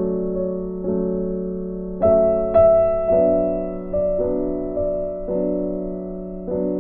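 Soft instrumental background music on piano, slow chords struck about once a second and left to fade.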